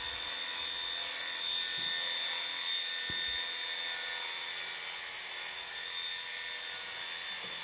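Electric dog grooming clippers with a comb attachment running with a steady hum as they cut through a dog's coat.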